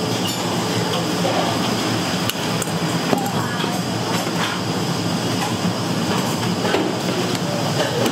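Busy kitchen noise of a breakfast shop: a steady machine hum with scattered clicks and clatter, and faint voices in the background.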